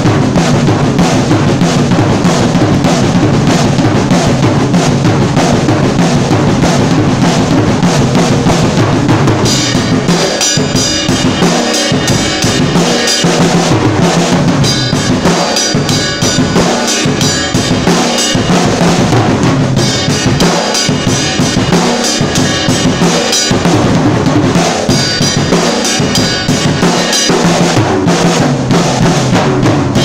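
Drum kit with a 22-inch kick drum, a 13-inch rack tom and a 16-inch floor tom (single-headed concert toms) played loudly and without a break, with cymbals. About ten seconds in, the cymbals come in brighter and the beats become more clearly separated.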